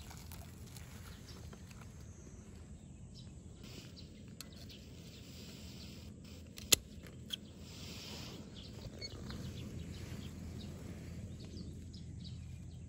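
Spring-loaded pruning shears snipping through a watermelon's stem to harvest it: one sharp click about two-thirds of the way in, then a smaller click.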